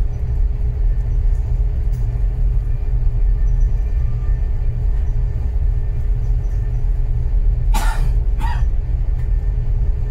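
Steady low rumble on board a container ship as it manoeuvres off the berth, with a faint steady hum above it. Two brief sharp sounds come about eight seconds in.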